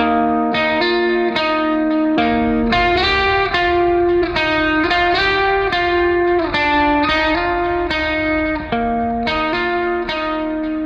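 Background music: a guitar playing plucked notes in a steady, regular rhythm.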